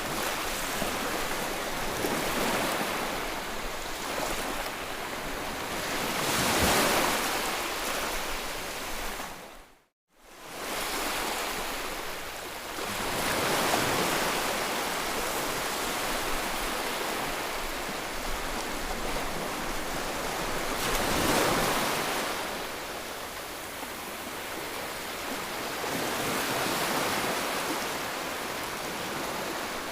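Baby-soothing white noise: a steady rushing hiss that swells and ebbs about every seven seconds, like surf. It drops out to silence for a moment about ten seconds in, then fades back up.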